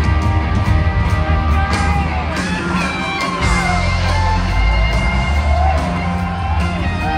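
A live rock band playing, with electric guitar, bass, drums and keyboards over a steady low groove. About midway through, a run of sliding, falling notes stands out above the band.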